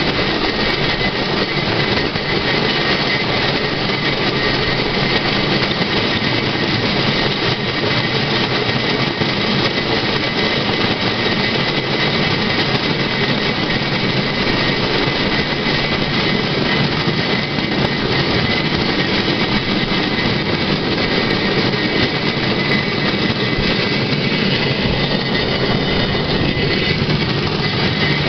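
Swedish pedal rail trolley rolling along old rails: the steel wheels and frame make a steady, even running noise with no breaks.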